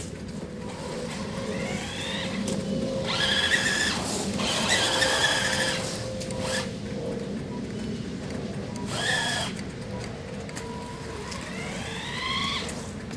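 Electric RC truck's Titan 550 12-turn brushed motor and drivetrain whining as it is driven in spurts: the whine rises in pitch as it speeds up near the start and again near the end, with louder high whining a few seconds in and again around the middle.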